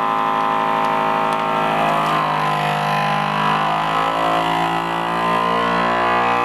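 FoodSaver vacuum sealer's pump running steadily, drawing the air out of a sealer bag before the heat seal.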